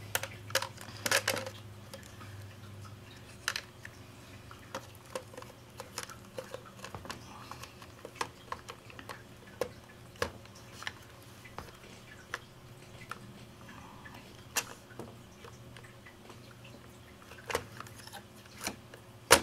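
Irregular plastic clicks, knocks and scrapes as a camcorder is pushed and worked into a Sony SPK-CXA hard-plastic underwater housing, over a steady low hum.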